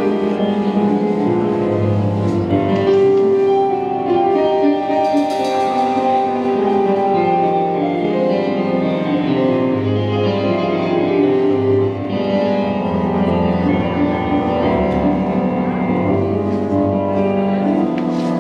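Cuban salsa band playing live, with piano on a stage keyboard over a steady bass line.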